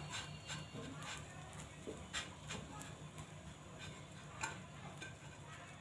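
Faint, scattered light clicks and taps, about a dozen, while sandwich pieces toasting in oil are turned over by hand in a frying pan.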